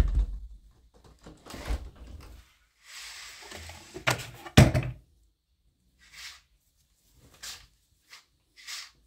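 Household handling sounds: a series of knocks and thuds like a door, drawer or cupboard being worked, loudest about four and a half seconds in, then four short soft swishes.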